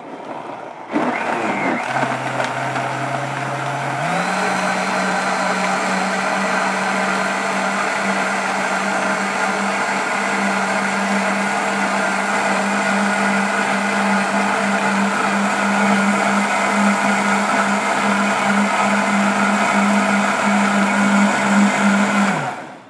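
JTC OmniBlend V heavy-duty blender motor starting up and blending chunks of vegetables and fruit in orange juice. Its pitch steps up about four seconds in, it runs steadily and loudly, and it shuts off just before the end.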